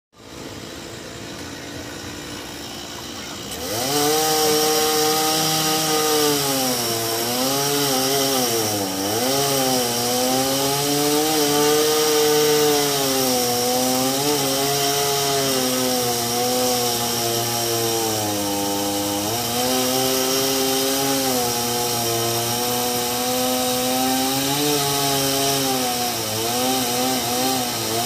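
Petrol chainsaw cutting a tree trunk. It is quieter for the first few seconds, then from about four seconds in it runs at high revs under load, its pitch sagging and recovering several times as the chain bites into the wood.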